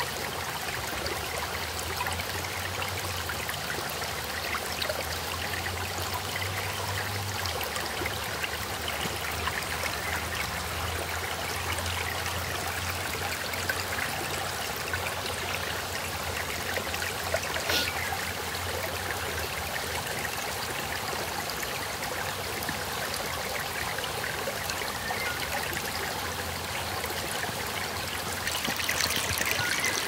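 Shallow brook trickling over stones and sticks, a steady rushing of water that grows a little louder near the end.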